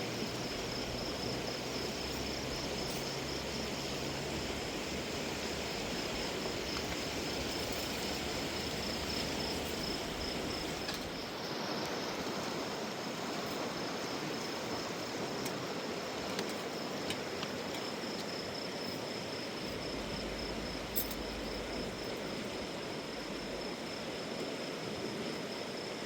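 Steady rush of a wild river, with insects trilling on one high, pulsing note over it. A single sharp click comes about three-quarters of the way through.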